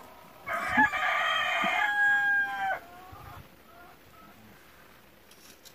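A rooster crowing once, starting about half a second in and lasting just over two seconds, the call trailing off at the end.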